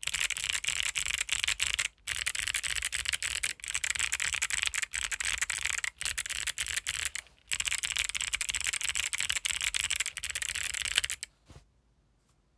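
Fast, continuous typing on a MonsGeek M1 mechanical keyboard with Kailh Box White V2 clicky switches on a polycarbonate plate: a dense run of crisp clicks with a few brief pauses. It stops about eleven seconds in.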